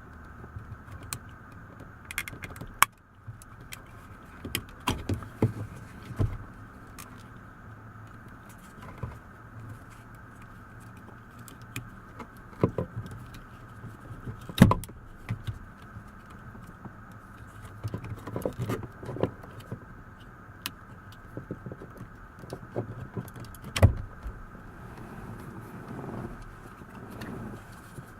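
Irregular clicks, taps and knocks of small plastic parts being handled as a car's power-window switch assembly is worked on, over a faint steady hum. A few sharper knocks stand out.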